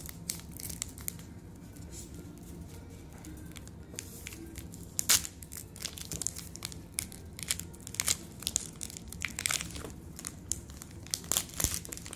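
A baseball card pack's wrapper being torn open by hand in short rips: irregular crinkling and tearing crackles, the sharpest about five seconds in and more of them near the end.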